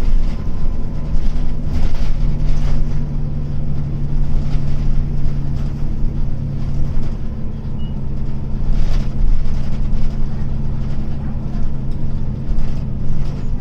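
Hino Blue Ribbon long-body city bus engine running steadily under way, heard from inside the passenger cabin as an even low drone with a few brief knocks. The uploader notes the engine note is a little different from an ordinary Blue Ribbon's, even with no air conditioning running.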